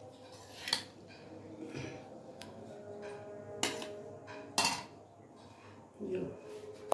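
Metal serving spoon scooping cooked rice out of an aluminium pot onto an enamel plate, with a handful of separate scrapes and clinks of metal on metal, the loudest two a little after three and a half and four and a half seconds in.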